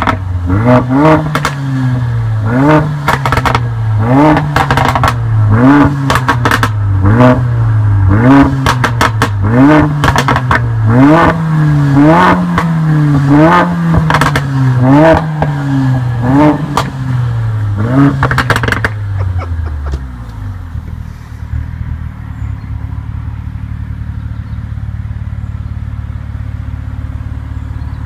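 Stock exhaust of a Mercedes-AMG A45, its 2.0-litre turbocharged four-cylinder free-revved in quick blips about once a second, with pops and crackles as each rev falls. About nineteen seconds in, the blipping stops and the engine settles to a steady idle.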